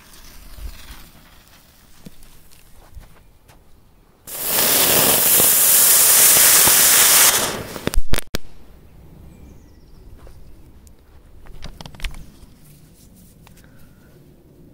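Firecrackers going off: a loud hiss for about three seconds, then two sharp bangs a fraction of a second apart, followed by a few faint scattered pops.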